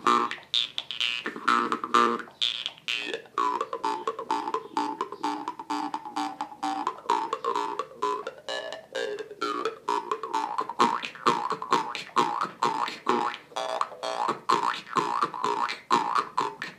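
Jew's harp played in a fast techno-style rhythm: a steady twanging drone plucked several times a second, its tone swept up and down in a wah-like way.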